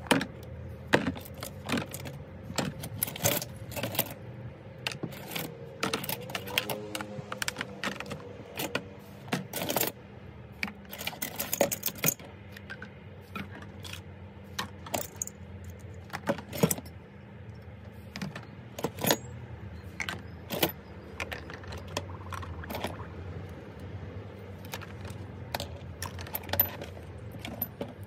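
Small metal bicycle parts, brake arms and headset spacers, clinking and clicking against one another as they are handled and washed in a bucket of soapy water, with frequent sharp clinks over a steady low hum.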